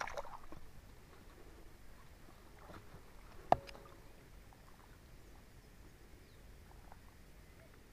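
One sharp snap about three and a half seconds in, with a short rustle of handling at the start, over faint creek-bank background.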